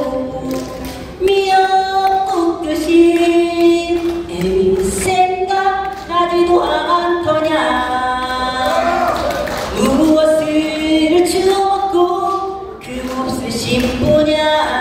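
A solo voice singing unaccompanied into a microphone, amplified over the stage speakers. It sings long held notes that bend in pitch, with short breaks for breath.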